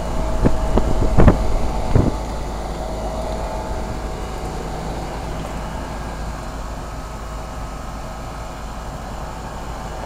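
Outdoor condensing unit of a 2004 Carrier 3-ton split-system heat pump running in cooling mode: the single-stage reciprocating compressor and condenser fan make a steady hum and rush with a faint steady tone. A few brief knocks come in the first two seconds.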